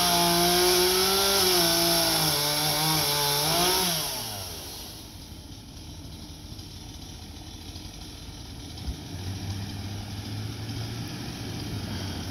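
Chainsaw running at high revs, its pitch wavering as it cuts. About four seconds in, the revs fall away and the saw drops off. A faint low engine hum from an approaching pickup truck comes up near the end.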